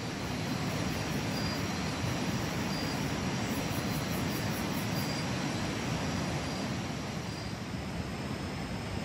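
Steady rushing of a river in flood, an even roar with no breaks. Faint short high chirps repeat about once a second over it.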